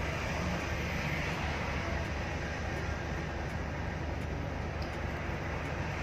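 Steady engine and road noise inside an intercity bus cabin as the bus cruises along a highway, with a deep low rumble under an even rushing noise.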